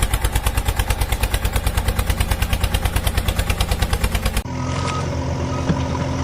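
Vehicle engine chugging with a fast, even beat of about nine pulses a second. About four seconds in it cuts off abruptly to a smoother, steady engine hum.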